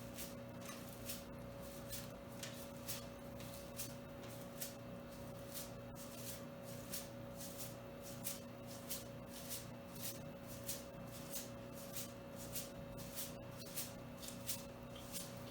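Stiff broom-like brush bristles flicked again and again, about two sharp flicks a second, spattering thinned drywall mud to make an orange-peel texture. A faint steady hum runs underneath.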